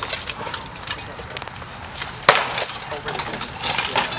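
Steel plate armour clanking and weapons striking armour and shield during armoured combat, with scattered metallic clinks and one hard strike about two seconds in.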